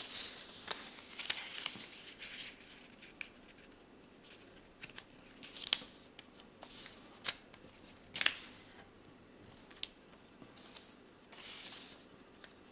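Origami paper being handled, folded and creased by hand: soft swishes and rustles of the sheet with scattered sharp paper crackles as folds are pressed down.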